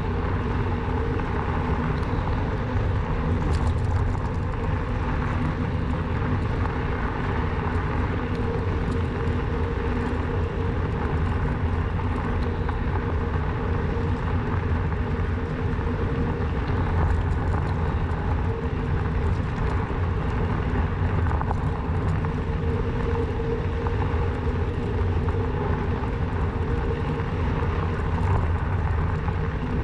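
Steady, unbroken ride noise from a Rawbike electric bike on the move, mostly a low rumble.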